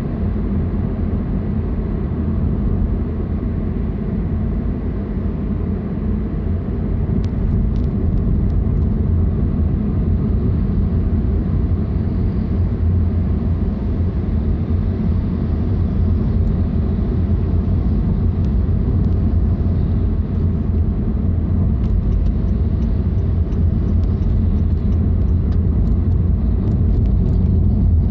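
A car driving along: a steady, low rumble of engine and road noise that grows slightly louder toward the end.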